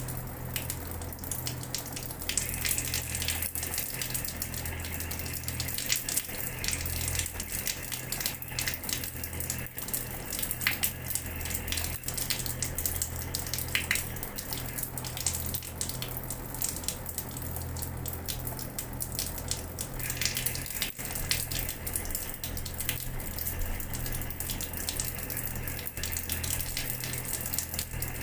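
Water running from a tap and splashing onto a floor in a steady stream, with many small splashes and a low steady hum underneath.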